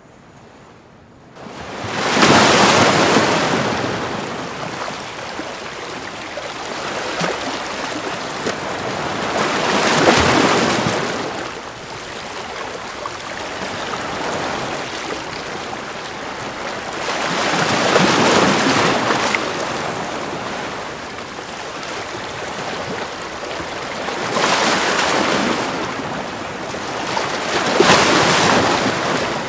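Sea waves breaking against a seawall and splashing over it. The surf swells in five big surges, about six to eight seconds apart, starting about a second and a half in.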